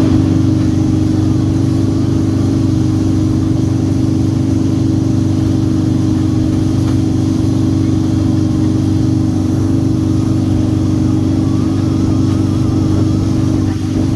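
Boat engine running at a steady speed, a continuous low drone.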